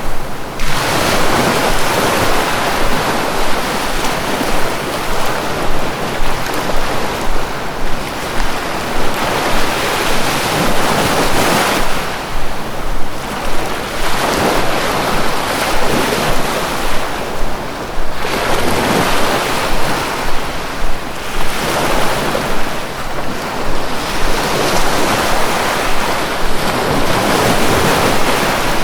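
Sea waves breaking and washing ashore in continuous surf, swelling and easing back every several seconds.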